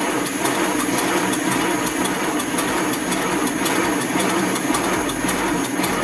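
Model steam locomotive running with its wheels raised off the rails on a stand, the motion turning over steadily with a rapid, even beat.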